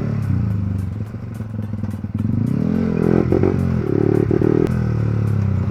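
Yamaha R15 V3's 155 cc single-cylinder engine running through a loud exhaust while riding: it eases off and quietens about a second in, then picks up and climbs in pitch again as the bike accelerates, with another rise near the end.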